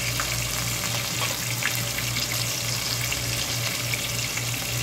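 Breaded shrimp frying in hot oil on a lowered flame: a steady sizzle with scattered small crackles.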